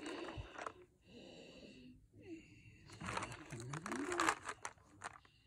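Handling noise of plastic packaging: rustles and a run of small clicks and taps as a clear plastic tub of acrylic gems is picked up and turned in the hand, busier in the second half.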